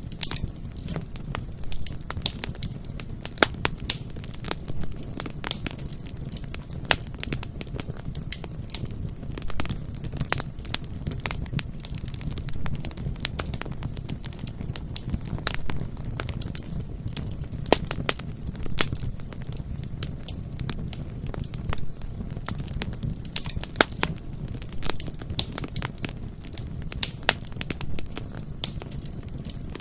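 Bonfire crackling, with irregular sharp pops and snaps of burning wood over a steady low rush of the flames.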